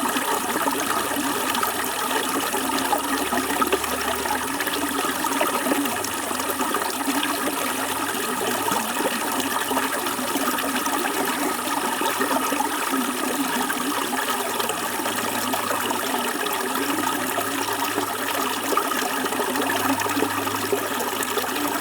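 Flowing water rushing steadily and evenly, with no pauses or changes.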